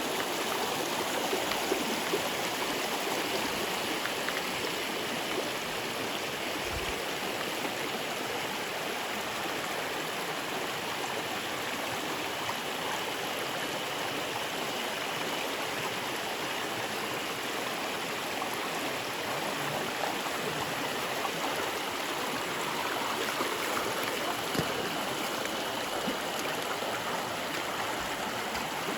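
Mountain stream running steadily, a constant rush of flowing water.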